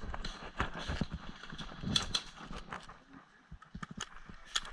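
Footsteps of a player moving over rough ground: an uneven run of sharp clicks and knocks, loudest about two seconds in and again near the end.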